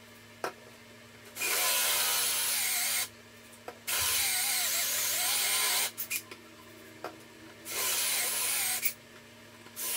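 Cordless drill with a diamond hole bit boring through stone tile, running in three spells of about one and a half, two and a half and one second, with a wavering pitch, plus a short burst at the very end.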